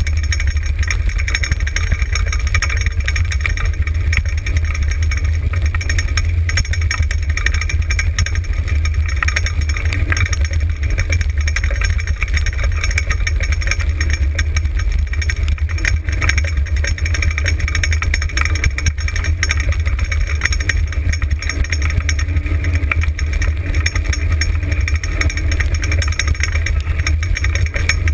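Four-wheeled dryland dog cart rolling fast over a dirt trail: a steady low rumble from the rig and the wind rushing past it at about 27 km/h, unbroken throughout.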